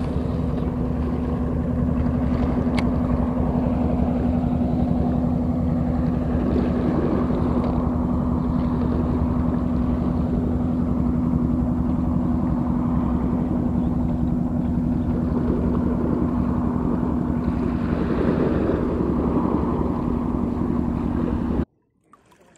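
An engine running steadily at an even pitch, cutting off abruptly near the end.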